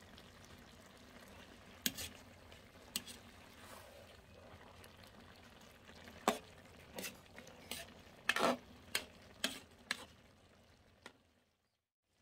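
Metal spatula scraping and clinking against a wok while stirring jackfruit in coconut milk: about a dozen sharp scrapes, most of them a little past the middle, over a faint steady simmering hiss. The sound cuts out near the end.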